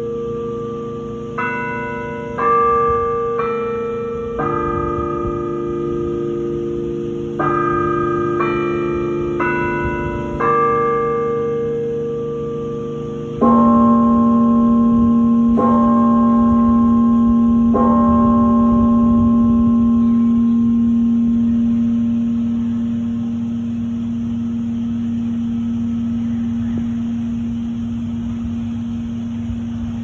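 Bell sounds played through a bell tower's loudspeakers. A slow chime melody of ringing bell notes is followed by three hour strikes about two seconds apart, tolling 3 o'clock, and the last strike rings on for a long time.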